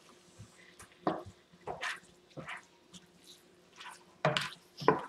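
Plastic spatula stirring ground beef and chopped green pepper in a frying pan: a handful of irregular wet scrapes and squishes, the loudest two near the end.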